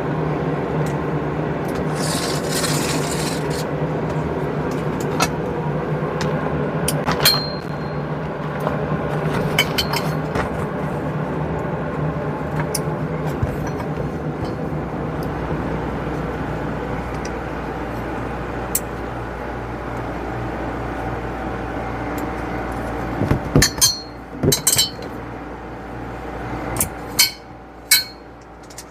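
Scattered sharp clicks and light metallic clinks of small hardware being handled, bunched together near the end, over a steady background hum.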